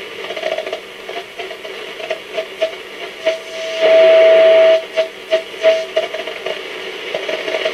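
Roberts R727 transistor radio on shortwave, its speaker giving out hiss with a whistle of steady pitch that keeps breaking on and off in short beeps. The whistle is held longest and loudest for about a second, about four seconds in.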